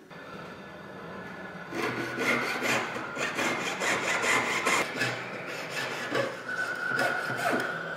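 Jeweler's saw blade cutting through silver wire ring bands on a wooden bench pin, with quick back-and-forth strokes, several a second, starting about two seconds in.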